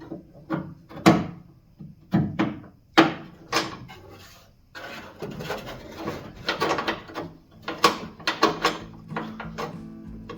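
Trunk latch parts being handled and fitted: a string of sharp clicks and knocks, with a longer scraping rustle a few seconds in.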